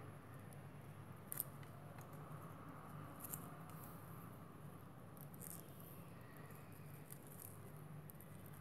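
Faint, intermittent scratchy strokes, a few seconds apart, over a low steady hum.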